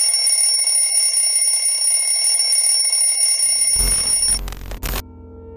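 Alarm ringing steadily as a countdown timer reaches zero, several high steady tones over a hiss. About three and a half seconds in, a deep low rumble and drone come in, and the alarm cuts off suddenly soon after.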